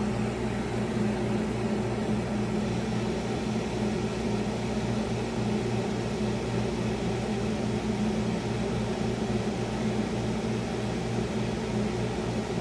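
2011 Ducane heat pump outdoor unit running with a steady hum over a constant rush of air, its outdoor coil frozen over with frost and ice and not yet in defrost.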